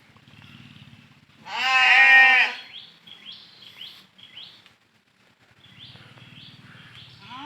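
Goat bleating: one loud, wavering bleat about a second and a half in, then a few faint short chirps, with another bleat starting right at the end. The goats are bleating from hunger because they have not yet been taken out to graze.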